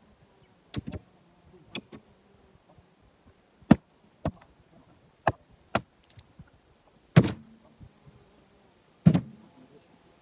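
Blocks of split jarrah firewood being thrown down one after another: a series of about nine sharp wooden knocks at uneven spacing, the two heaviest, deeper thuds about seven and nine seconds in.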